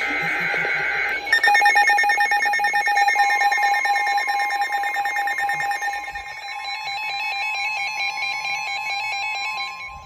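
NOAA weather radios sounding an Emergency Alert System severe thunderstorm warning. The end of the SAME digital header burst gives way about a second in to the radios' rapid electronic beeping and warbling alarms. About three seconds in, the steady 1050 Hz weather radio warning tone joins them.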